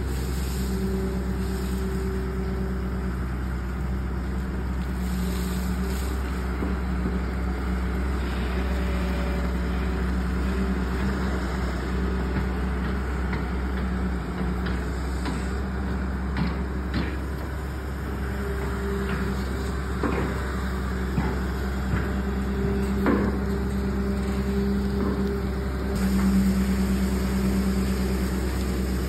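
Diesel engine of a Hyundai long-reach excavator running steadily under hydraulic load while it digs, with a few scattered knocks and clanks midway. The engine note gets louder near the end.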